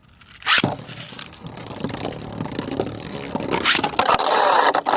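3D-printed beyblades being launched with a sharp zip about half a second in, then spinning and scraping against each other and the stadium with rattling hits. A sharp clash comes after about three and a half seconds, and a louder stretch of grinding near the end cuts off suddenly.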